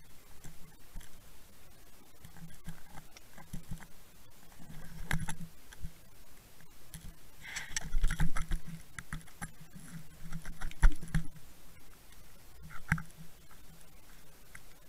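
Underwater camera housing on a sandy seabed picking up scattered clicks, knocks and scrapes. A louder run of scraping and knocking comes about eight seconds in as the camera is jolted and swings, with another sharp knock near eleven seconds.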